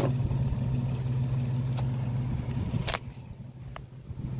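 Twin ARB on-board air compressor running with a steady hum, then stopping with a sharp click about three seconds in, leaving it much quieter.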